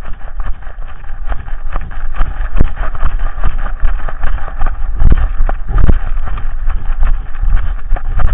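Camera-mounted-on-a-dog noise as the dog runs carrying a plastic frisbee in its mouth: dense, irregular knocking and rubbing against the camera, heavier thuds about five and six seconds in, and a low rumble of wind on the microphone.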